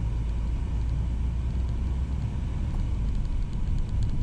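Volkswagen van on the move, heard from inside the cabin: a steady low rumble of engine and road noise.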